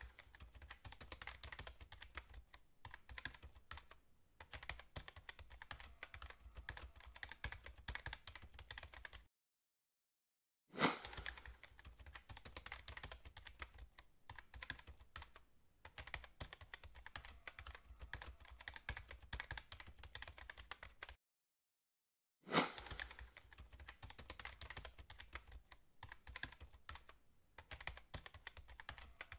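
Computer keyboard typing sound effect: a fast, continuous clatter of key clicks in three runs broken by short silences, the second and third each opening with a louder sharp hit.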